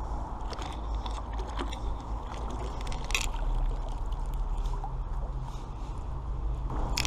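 Magnet-fishing rope being hauled in by gloved hands out of canal water, with rustling handling noise and a few sharp clicks, the strongest about three seconds in, over a steady low rumble on the microphone.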